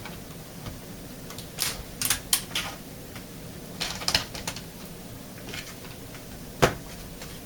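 Plastic laptop battery pack being pushed and seated into a laptop's battery bay: a series of sharp plastic clicks and knocks in small clusters, with one loudest sharp click near the end.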